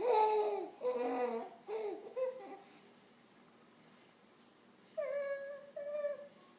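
A baby making weird high-pitched babbling vocal sounds: a run of bending squeal-like sounds over the first two and a half seconds, a pause of about two seconds, then two short calls near the end.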